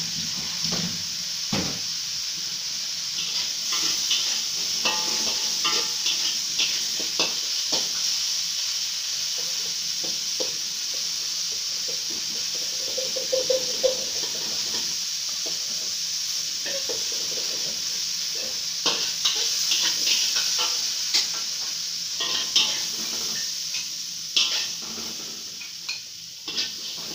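Salted fish bone pieces sizzling in oil in a steel wok, with a metal spatula scraping and clinking against the wok as they are stir-fried. Near the end the sizzle thins and the spatula knocks as the pieces are scooped out into a bowl.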